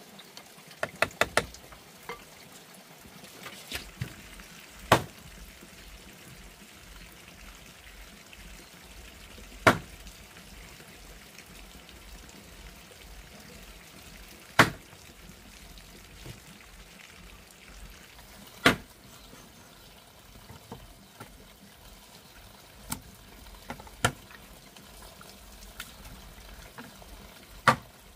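Sharp single knocks, a quick cluster of three or four about a second in, then one every four to five seconds, over a faint steady trickle of water.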